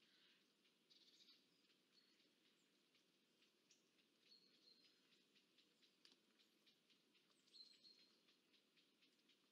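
Very faint: a few short, high chirps of small birds, three in all, the loudest near the end, over light irregular ticking of falling rain.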